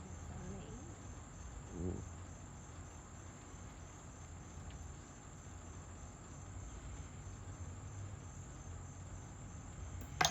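Insects chirping steadily in a high, evenly pulsing trill over a low steady rumble, with one sharp click near the end.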